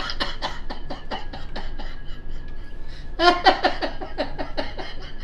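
A man and a woman laughing hard: quick breathy laugh pulses, about five or six a second, with a louder voiced laugh about three seconds in.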